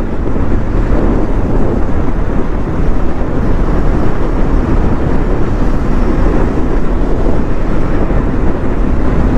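Steady rush of wind over the rider's microphone, mixed with the engine and road noise of a KTM Duke 390 single-cylinder motorcycle being ridden at speed.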